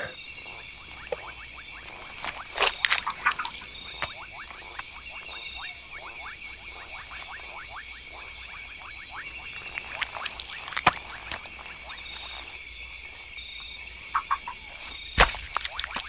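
Tropical rainforest chorus of frogs and insects: a steady high insect buzz, a short high note repeating about every second and a half, and a flurry of quick clicking frog calls through the first half, with a few louder clicks.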